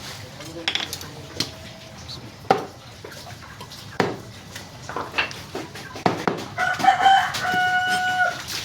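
Irregular sharp chops of a blade cutting through chicken on a board. About two-thirds of the way in, a rooster crows once, a held call of about a second and a half, louder than the chops.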